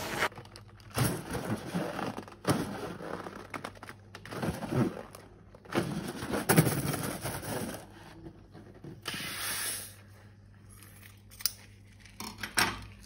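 Slime being handled by hand: irregular squishing, crackling and scraping, with a short steady hiss a little after halfway.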